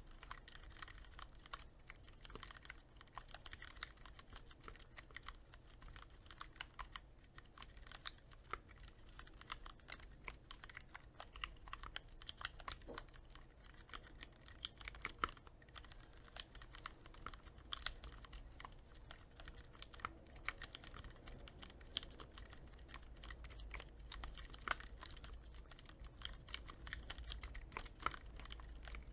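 Continuous typing on a Cherry MX Board 3.0S mechanical keyboard with Cherry MX Red linear switches, lightly lubricated with Krytox 105: a steady stream of keystroke clacks, several a second, with a few keys striking louder than the rest.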